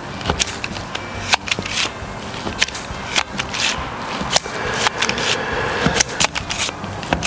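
A Jaccard blade meat tenderiser pressed again and again into a raw ribeye steak. Its spring-loaded blades click and crunch as they punch through the meat, in irregular strokes about two or three a second.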